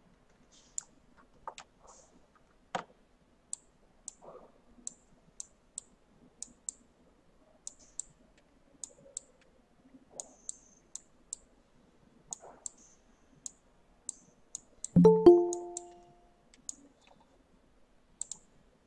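Computer mouse clicking in short, sharp clicks, several a second at times, with a few soft knocks in the first seconds. About 15 seconds in, a short, loud chime of several notes sounds and fades within about a second.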